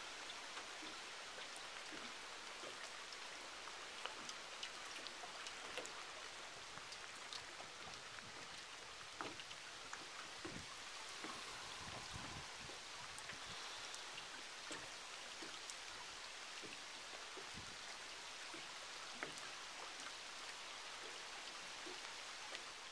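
Water trickling and dripping in a small stream, recorded close: a faint, steady splashing hiss with many scattered drips and plinks.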